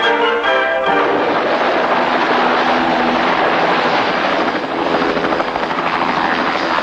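A closing music phrase ends about a second in. A US Marine Corps helicopter then runs on a landing pad, its rotor and engine making a dense, steady noise.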